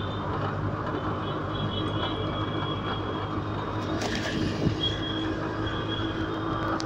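Steady engine drone and road noise from inside a moving auto-rickshaw. Faint high squeaks come and go, and a short knock sounds a little past halfway.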